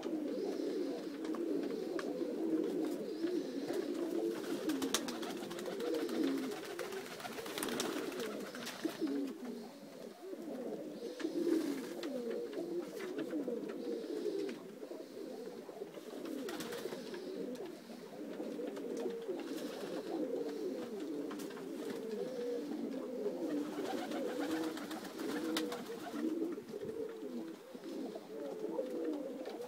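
A flock of domestic pigeons cooing together, many low coos overlapping without a break.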